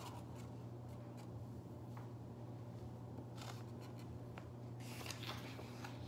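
Quiet rustling and scraping of paper as a paper cutout is slipped into a brown paper bag, with a few soft rustles about three and a half and five seconds in, over a steady low hum.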